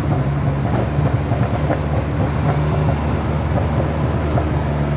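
Turbocharged Ford Focus 2.0 Zetec engine running at a steady pitch, with a few light clicks and rattles over it in the first half.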